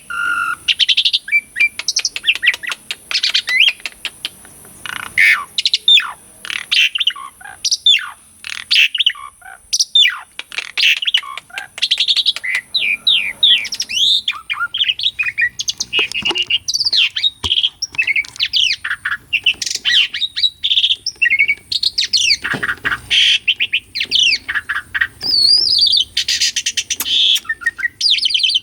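Asian pied starling (jalak suren) singing in full, vigorous song: a continuous jumble of whistles, chirps, rapid chattering notes and slurred rising and falling phrases with barely a pause.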